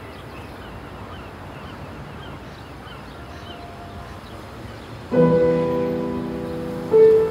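Soundtrack music: a few seconds of faint hiss, then a piano chord struck about five seconds in that rings on and slowly fades, with another chord struck near the end.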